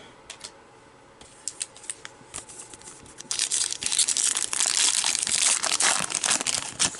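Foil wrapper of a 2020 Donruss baseball card pack being torn open by hand. A few light rustles and clicks at first, then from about three seconds in, loud crinkling and tearing of the foil.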